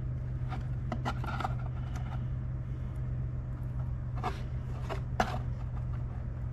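Scattered light clicks and scrapes of a new Ford 4.2 V6 oil pump being handled by hand, its metal gears turned and shifted in the aluminium housing, with a few strokes bunched around a second in and again around four and five seconds in. A steady low hum runs underneath.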